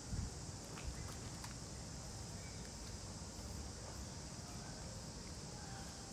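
Outdoor ambience: a steady high hiss over a low rumble, with a couple of soft bumps near the start and a few faint clicks.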